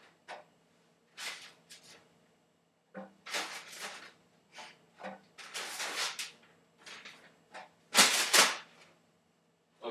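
Irregular handling noises: a run of short rustles and knocks, the loudest pair about eight seconds in.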